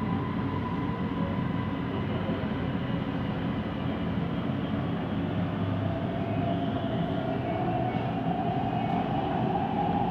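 Siemens Inspiro metro train running, heard from inside the car: a steady low rolling rumble from the wheels on the track, which the uploader calls a weird rolling noise. A whine rises slowly in pitch from about halfway through.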